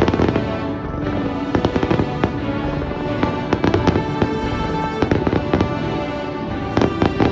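Fireworks bursting in repeated sharp bangs and crackles during a display finale, over music playing along.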